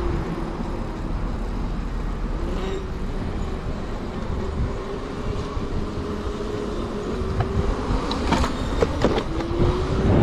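Electric motor whining steadily while riding at speed over wind and road rumble, its pitch dipping slightly early on and rising near the end; a few sharp clicks about three quarters of the way through.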